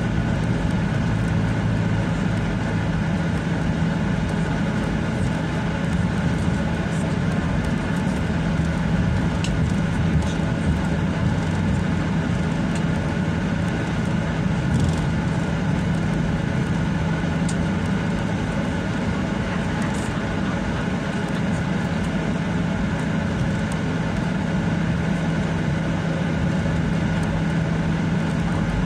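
Steady airliner cabin noise during taxi: the jet engines at idle giving a constant low hum under an even rush of noise.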